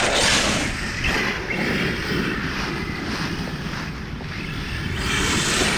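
Rushing wind noise buffeting the microphone, swelling at the start and again near the end.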